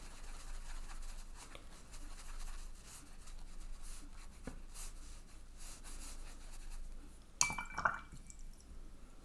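Watercolour brush working wet paint on cold-pressed cotton watercolour paper: faint, soft scratchy strokes and dabs. About seven seconds in there is a short clink with a brief ringing tone.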